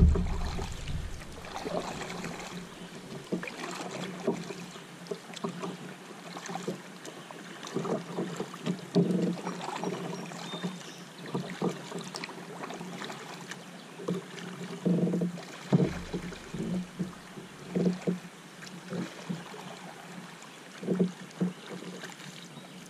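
Kayak paddling: a double-bladed paddle dipping and pulling through river water in uneven strokes every second or two, over a steady water and wind background.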